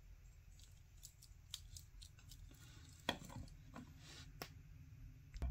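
Faint, irregular clicks and light taps of a hard plastic High Grade Gundam Barbatos Lupus model kit as its joints are moved and posed by hand, about eight clicks spread unevenly over a few seconds.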